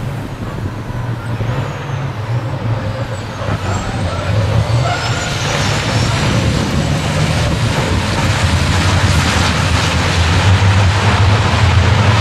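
A pack of racing trucks' big diesel engines under full acceleration: a deep, heavy engine drone that grows steadily louder as the field comes past, with thin high whistles gliding over it in the first few seconds.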